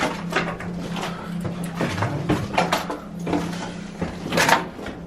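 Irregular footsteps crunching and scuffing over a floor littered with broken glass and debris, the loudest crunch about four and a half seconds in, over a steady low hum.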